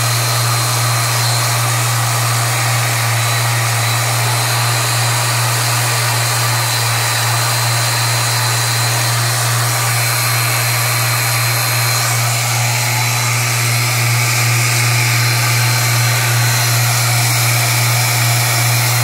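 Belt-driven 3D-printed two-stage regenerative supercharger, spun by an electric motor, running steadily at speed. A strong hum, a thin high whine and a rush of air carry on throughout, and the tone shifts slightly about twelve seconds in. The freshly fitted rotor rubs a little in one spot but holds together.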